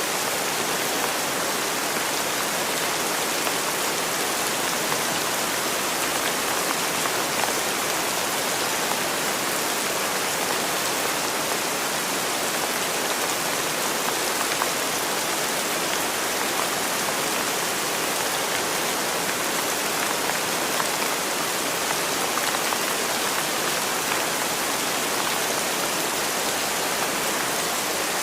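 Steady rain: an even hiss of falling rain with faint scattered drops, holding constant throughout.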